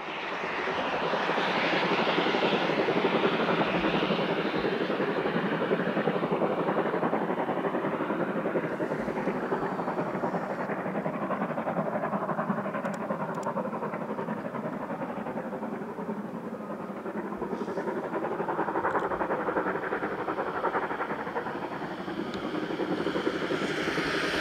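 Rhaetian Railway G 4/5 steam locomotive working hard with its train, the exhaust chuffing steadily.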